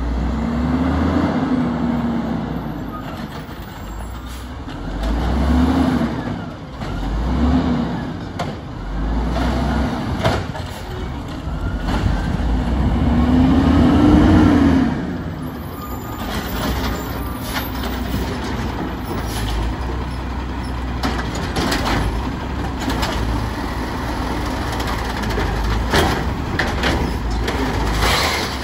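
Diesel engine of a Peterbilt garbage truck with an Amrep automated side loader, revving up and down four times in the first half as it powers the hydraulic arm, then running steadily with scattered knocks and clanks from the arm and carts.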